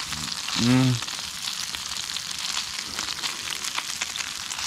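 Grayling and onion frying in oil in a pan: a steady crackling sizzle. A brief hum from a man's voice sounds just under a second in.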